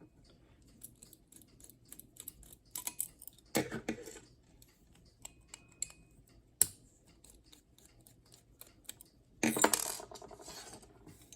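Small metal clicks and scrapes from working the stamped steel bell off a Westclox alarm clock movement, with one sharp click in the middle and a longer scraping rattle near the end.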